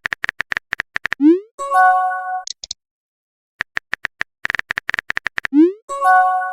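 Phone messaging sound effects, heard twice: a rapid run of keyboard-tap clicks, a quick rising whoosh, then a short chord-like notification chime.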